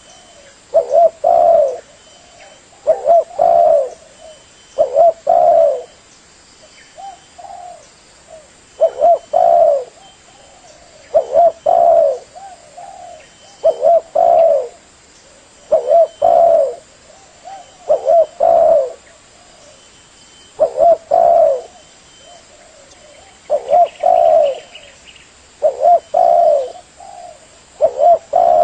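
Spotted dove (tekukur) cooing: a short phrase of two or three low coos, repeated about every two seconds.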